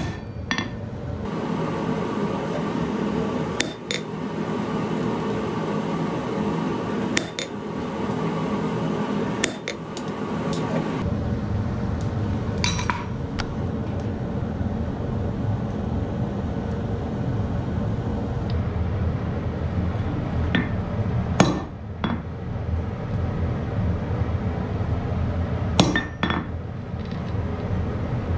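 Hammer striking a steel bar on an anvil: about eight separate, ringing metallic blows, spaced irregularly a few seconds apart, over a steady rushing background noise.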